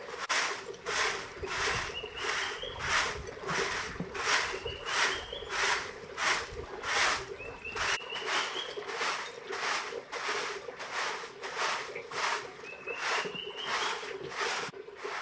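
A long-handled straw broom sweeping packed dirt ground in steady rhythmic strokes, about two a second.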